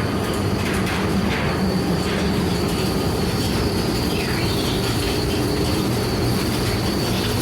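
Steady machinery noise of a coal-fired steamship's boiler room while underway: a dense, even rumble with a constant high-pitched whine over it.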